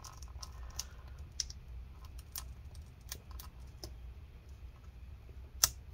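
Light scattered clicks and scrapes from prying an adhesive-backed CMOS coin-cell battery off a laptop motherboard, with one sharp, louder click near the end as the battery comes unstuck.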